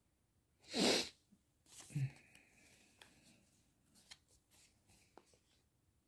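A person sneezing, a sharp burst about a second in. Then a few seconds of soft rustling and small clicks as a card of embroidery floss and kits in plastic sleeves are handled.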